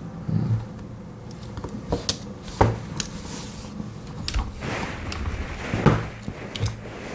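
Handling of Swiss Army knives with their small spring scissors: a run of irregular sharp metal clicks with brief scraping in between, as the tools are opened, worked and set against each other.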